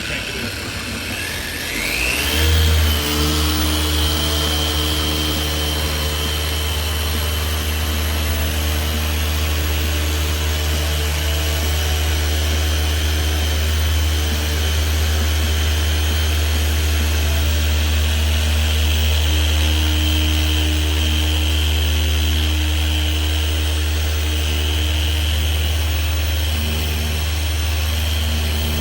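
Dual action polisher speeding up about two seconds in, then running steadily with a low hum and a high whine as it works a one-step polish into an oxidized headlight lens.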